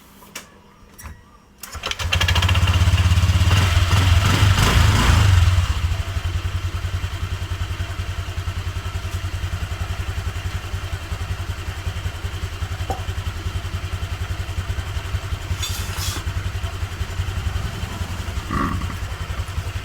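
Honda Vario 125 scooter's single-cylinder engine starting about two seconds in, running louder for a few seconds, then settling to a steady idle. This is its test run with a freshly replaced CVT pulley bearing.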